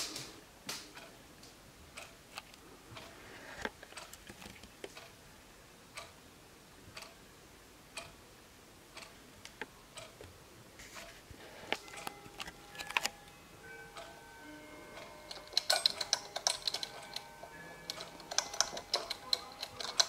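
Weimar Uhren wall clock ticking about once a second. In the second half the clock's mechanical kitchen timer dial is turned by hand, a dense run of rapid clicks with faint ringing tones under them that grows louder toward the end.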